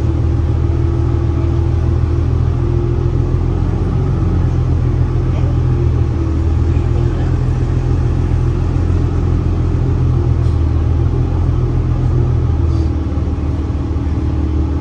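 Steady low rumble of a New Flyer Xcelsior XDE60 diesel-electric hybrid articulated bus, with its Cummins ISL9 diesel engine and Allison H 50 EP hybrid drive, heard from inside the passenger cabin while it runs. A wavering hum sits above the rumble, which eases slightly near the end.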